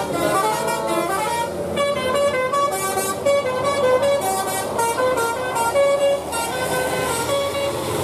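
Basuri-type telolet musical air horn on a tour bus playing a fast tune of short, stepped notes, over the bus's engine as it passes.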